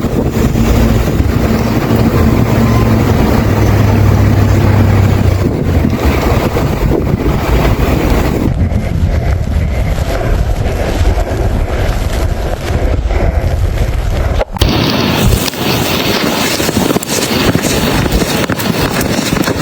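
Wind buffeting the microphone in a snowstorm, a loud rushing noise, with a low steady hum underneath for the first few seconds. The sound changes abruptly twice, about eight and a half and fourteen and a half seconds in.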